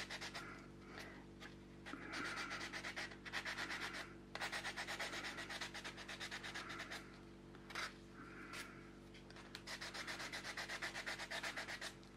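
1000-grit wet-and-dry sandpaper, wetted with soapy water, rubbed by hand over the edges of a cast epoxy resin piece in quick back-and-forth strokes. The strokes come in several short bouts with brief pauses between them.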